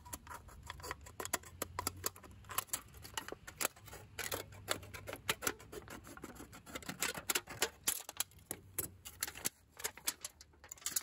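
Wiss A11 tin shears snipping through a thin aluminium beer can: a quick run of sharp clicks with crinkling metal, thinning out near the end.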